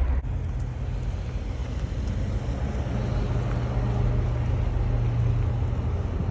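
Chevrolet Camaro's V6 engine idling with a steady low drone, just after starting up.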